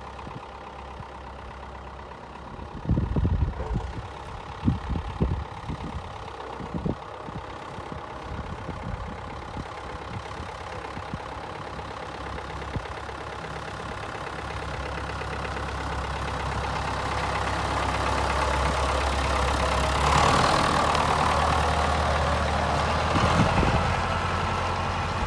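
David Brown 850 Implematic tractor engine running as the tractor drives up, growing louder until it passes about 20 seconds in, then easing off as it moves away. A few low thumps are heard a few seconds in.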